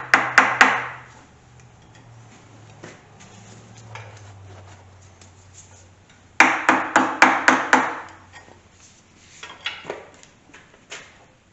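Soft-faced mallet striking a steel pry bar braced against the camshaft timing gear of a Pontiac 350 V8 block, knocking the gear loose. A quick run of about four ringing blows comes first, then after a pause a faster run of about eight, and a few lighter taps near the end.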